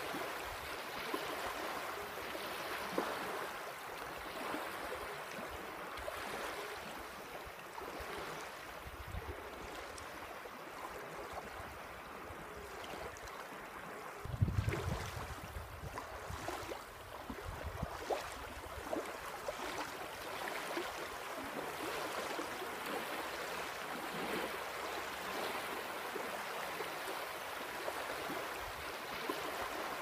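Small waves lapping and washing onto a sandy, pebbly shore: a steady wash of water with irregular small splashes. A louder, deeper rush comes about halfway through.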